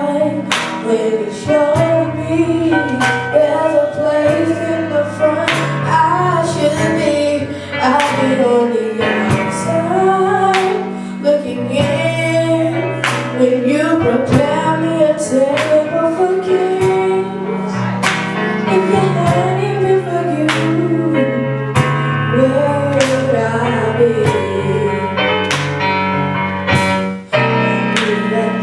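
Live gospel song: voices singing a melody over a band, with a steady bass line and drum hits marking the beat.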